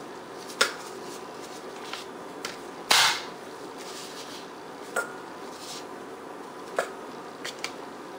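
Flat of a chef's knife slapped down to crush garlic cloves on a plastic cutting board: four sharp smacks about two seconds apart, the loudest about three seconds in, then a couple of faint taps near the end.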